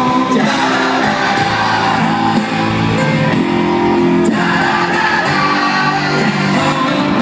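Live Celtic punk rock band playing loud, with electric guitars and several voices singing, heard from within the audience.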